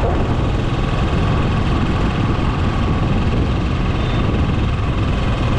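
Royal Enfield motorcycle riding at a steady speed: the engine drone and the rush of wind over the microphone make one loud, unbroken noise.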